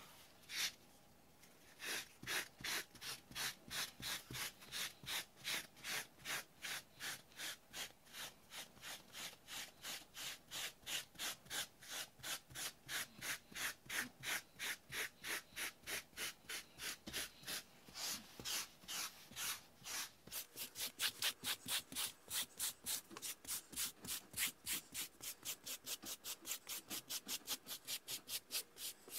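Quick back-and-forth scrubbing strokes of a hand-held pet-hair brush on carpet, lifting cat hair stuck in the pile. The strokes start about two seconds in at roughly two a second and speed up to about three a second after twenty seconds.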